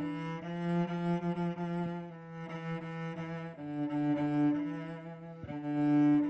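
Solo cello bowed with long sustained notes: a low note held beneath higher notes that change every second or so, swelling loudest near the end.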